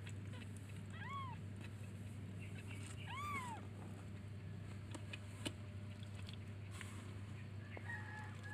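Young kitten mewing twice, two short high calls about two seconds apart, each rising then falling in pitch, the calls of a kitten for its mother.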